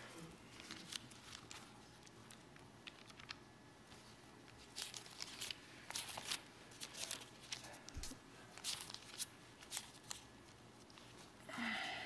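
Thin pages of a small Bible being leafed through by hand: faint, crisp paper rustles and flicks, scattered and thickest from about five seconds in.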